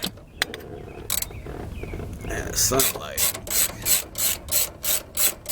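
Hand socket ratchet clicking as it is worked back and forth to loosen a door bolt. The clicks start out scattered and settle into an even run of about three a second from about halfway in.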